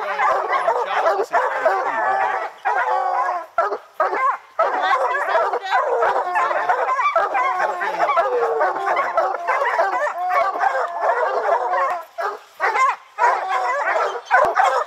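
Several bear hounds baying at a treed bear, their overlapping voices going on nearly without pause.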